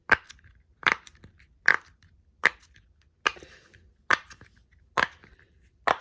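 Bubbles of a double-sided silicone pop-it fidget toy being pressed in one at a time: eight sharp pops, evenly spaced about one every 0.8 seconds, a really good pop.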